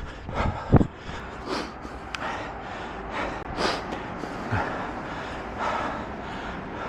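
A runner breathing hard, short puffs of breath coming about every half second to a second, with a low thump just under a second in.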